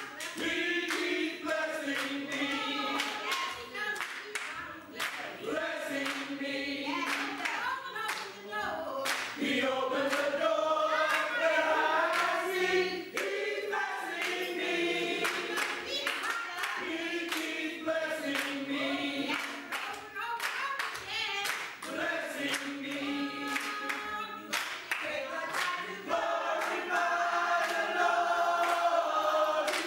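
Church choir singing a gospel song, with steady hand clapping on the beat, about two claps a second.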